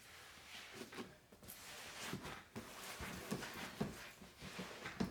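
Faint, irregular knocks and rustles of handling in a small room.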